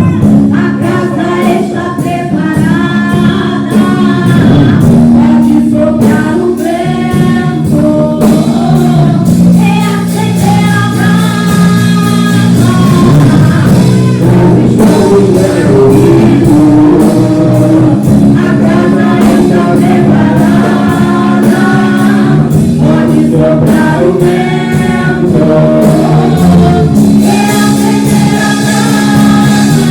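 Church worship music: singers with instrumental accompaniment and a steady beat, with sustained notes.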